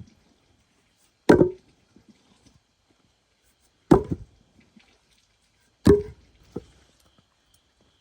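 Chopping wood with a blade: three heavy chops about two seconds apart, the third followed by a lighter knock.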